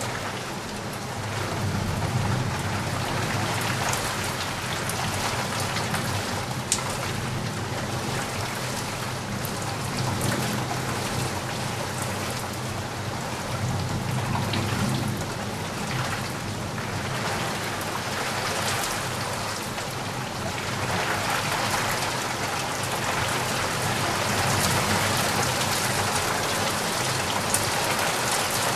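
Steady rain falling, a dense hiss with individual drops ticking close by, and a low rumble that swells and fades at times.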